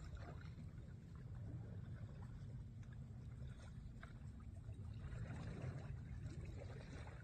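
Wind rumbling on the microphone, with faint lapping and splashing of loch water that grows a little about five seconds in.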